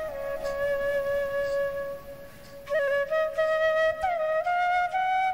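Background music: a flute playing a slow melody, one long held note and then shorter stepping notes.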